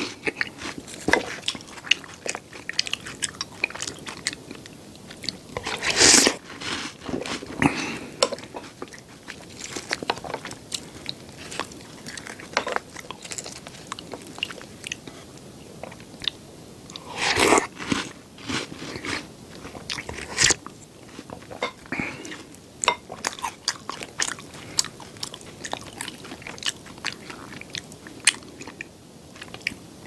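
Close-up eating sounds: chewing milk-soaked chocolate cookie sticks, with many small wet mouth clicks and crunches. Two longer, louder slurps come from a spoonful of milk and cookies, about six seconds in and again a little past halfway.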